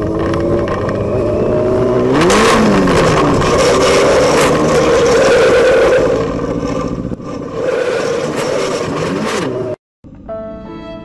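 Motorcycle engine running and revving, its pitch rising and falling about two seconds in, under a loud rush of wind noise on the helmet camera. The sound cuts off abruptly near the end, and soft music begins.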